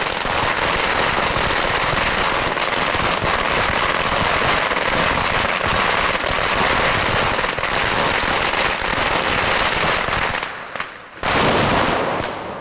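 Strings of firecrackers (Böllerketten) going off in a dense, continuous rattle of rapid bangs. About ten seconds in it thins out and briefly stops, then a last loud burst of bangs comes near the end.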